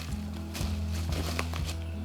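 Background music with a bass line that moves in steps.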